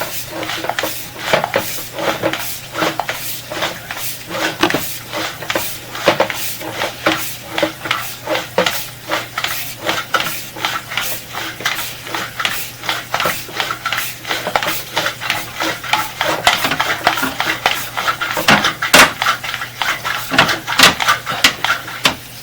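Drain inspection camera push rod being fed by hand into a drain line, the rod and reel clicking and rattling in an irregular series of sharp knocks, a few a second, as it is forced forward.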